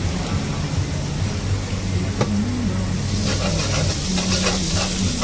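Flat rice noodles sizzling in a hot steel wok while a metal ladle scrapes and knocks against the pan as they are stir-fried. The sizzle grows louder about three seconds in, over a steady low hum.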